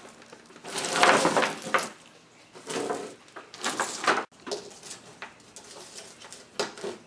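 Rustling and clattering of collected rocks and shells being handled and set out, in several short bursts with a few sharp clicks near the end.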